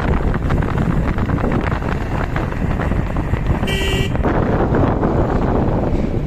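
Diesel engine of heavy earthmoving machinery running under load with a loud, clattering drone. A short horn toot sounds a little under four seconds in.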